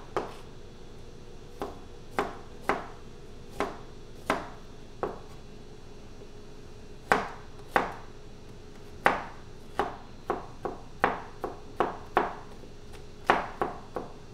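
Chef's knife chopping garlic cloves on a thin plastic cutting mat laid over a glass cooktop: sharp, irregular knocks of the blade, a few widely spaced at first, then coming quicker from about halfway.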